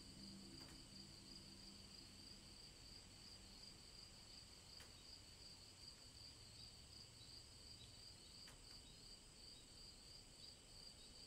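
Near silence with a faint, steady cricket trill, high and finely pulsing, and a few faint ticks.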